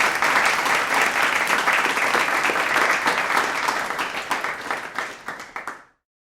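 Medium-sized crowd applauding: dense, steady clapping that thins to scattered separate claps toward the end and then stops.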